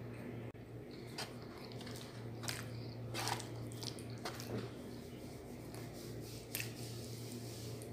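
Close-up wet eating sounds of a person eating sardines and rice by hand: a few scattered smacks and squishes of chewing, with a low steady hum underneath.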